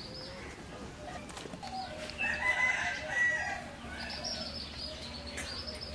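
A rooster crowing once, about two seconds in, for over a second.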